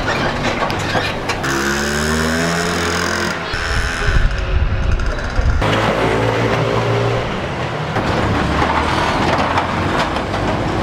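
Motor scooter and car engines running and revving as they pass close by, with heavy low rumble. The sound changes abruptly every couple of seconds.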